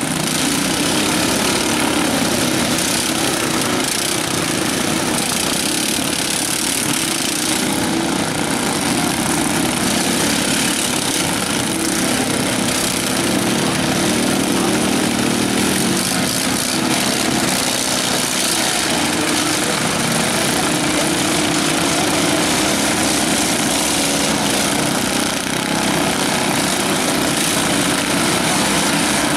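Several riding lawn mower engines running together, a steady small-engine drone with no sudden crashes or revs standing out.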